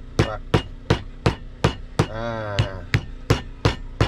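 Boiled jengkol beans being pounded flat with hard, evenly paced blows, about three a second, with a short pause midway where a brief voice-like hum is heard.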